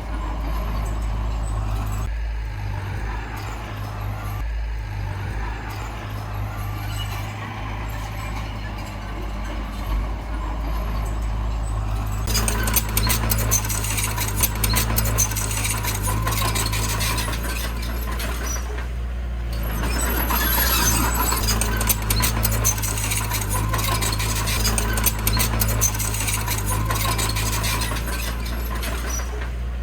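Diesel engine of heavy earthmoving machinery running steadily. About twelve seconds in, a loud rattling, scraping clatter joins it and keeps on, breaking off briefly a little past halfway.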